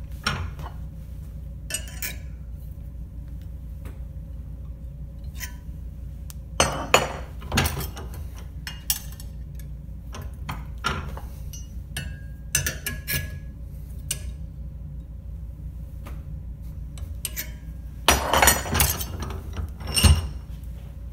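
Metal clinks and clanks of a leg orthosis's metal stirrup and uprights being bent by hand in a steel bench vise and handled, over a steady low hum. The knocks come in louder clusters about seven seconds in and again near the end.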